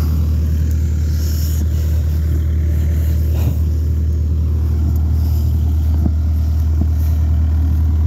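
Bobcat 331 compact excavator's diesel engine running steadily, a constant low drone, with a few faint clicks over it.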